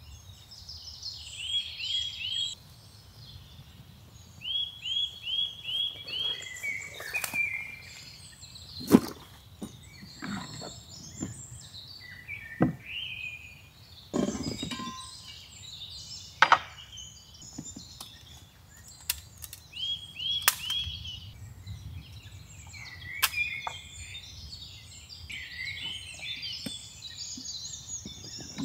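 Wild birds singing and chirping, including a short phrase of quick repeated notes heard several times. Scattered sharp knocks and clunks come through it, the loudest about nine seconds in and again about sixteen seconds in.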